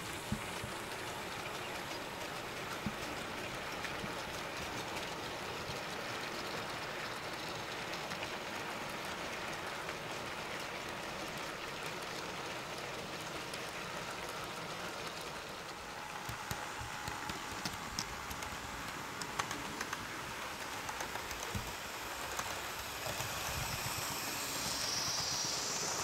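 Model train running along the track: a steady rolling noise with scattered clicks.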